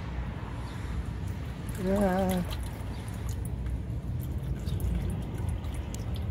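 Engine oil dripping and trickling from an oil filter being unscrewed by hand into a drain pan, over a steady low rumble. A short hummed voice sound comes about two seconds in.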